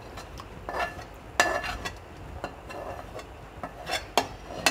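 Metal spoon scraping and clinking against metal pans as chicken curry is scraped out of one pan into a cooking pot, with a handful of sharp ringing clinks.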